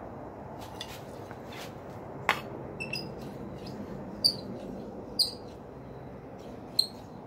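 Hand-forged iron strap hinge being swung back and forth on its pintle, giving a few sharp metallic squeaks and clinks, each with a brief high ring. The fit is still tight, with a little bite and catch as it turns.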